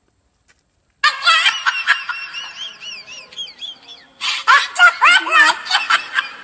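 High-pitched, warbling cartoon-style giggling with music, a comic sound effect that starts abruptly about a second in after complete silence and comes in two stretches.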